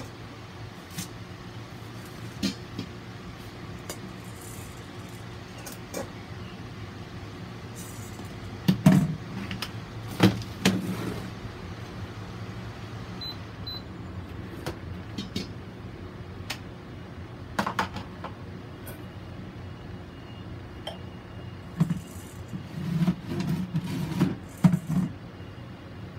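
Scattered clicks and rustling handling noises, loudest in short bursts about nine and ten seconds in and again near the end, over a steady low hum.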